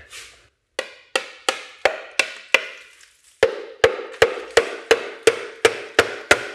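Repeated knocks on the stuck oil pan of a 2005 Honda Civic to break it free of the engine block, about three a second. A pause of about a second comes midway, and each later strike leaves a short ring.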